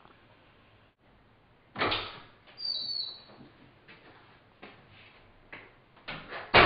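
A dull thump, then a short high squeak, followed by a string of irregular knocks and thuds, the loudest near the end.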